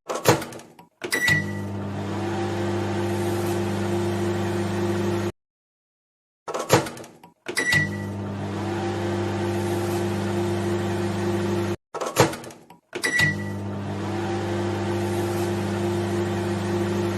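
Microwave oven starting up three times over: a few clicks of the door or buttons, a single short beep, then the steady hum of the oven running for about four seconds before it cuts off abruptly.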